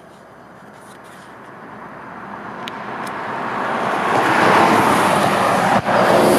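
A road vehicle approaching, its engine and tyre noise rising steadily over several seconds until it is loud and close near the end.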